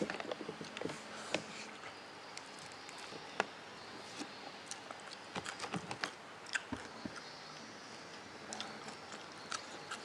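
Quiet eating sounds: chewing, with scattered small clicks and rustles of fingers picking at rice and fried bird meat.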